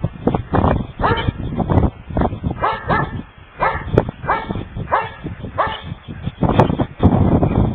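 Dogs barking and yipping in play: a run of short barks that come in quick clusters through the middle.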